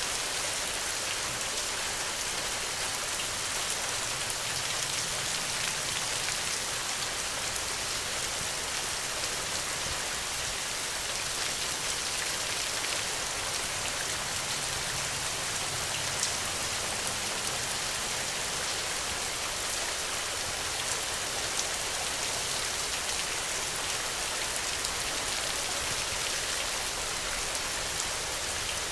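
Steady heavy rain: a dense, even hiss of falling rain with the occasional sharper drop tick.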